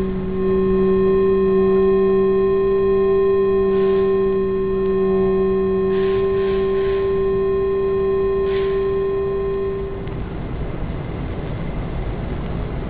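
A sustained drone of several held tones, like a long electronic or bowed chord. It runs steadily, with a few soft airy hisses over it, then fades out about ten seconds in and leaves a low hiss.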